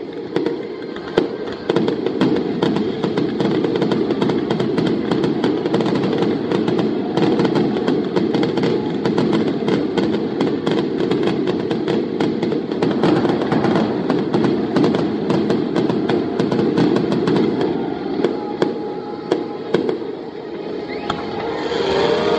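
Fireworks going off in a rapid, continuous barrage: dense crackling packed with sharp pops and bangs from aerial shells and spark fountains.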